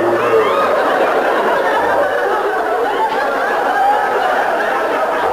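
Studio audience laughing, a steady mass of many voices.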